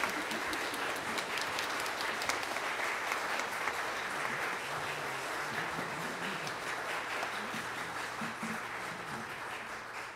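Congregation applauding the choir: dense, steady clapping of many hands that begins to fade near the end.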